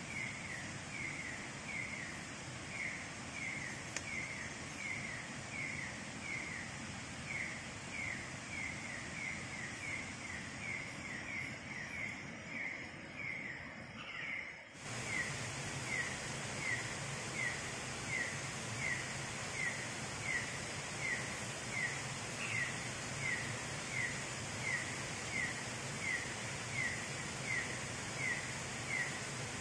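Night jungle ambience: an animal repeats a short chirp evenly, about one and a half to two times a second, over a steady high hiss of night insects. About halfway through, the background hiss dips briefly and comes back louder.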